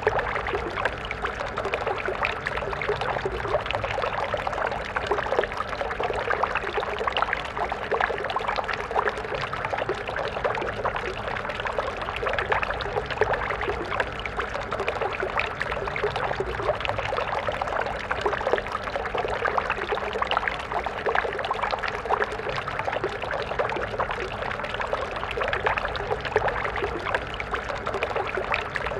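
A stream flowing steadily, water splashing and gurgling over stones with fine, close detail.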